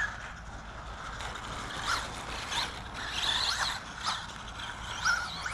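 Traxxas Bandito RC buggy's Velineon VXL-3s brushless motor whining in short sweeps that rise and fall in pitch as the throttle is worked, over a rough hiss from the car running on the dirt track.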